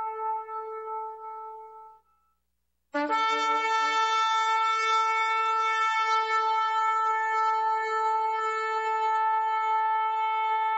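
Shofar blasts: a long note tails off about two seconds in, and after nearly a second of silence a second long, steady note starts sharply and holds.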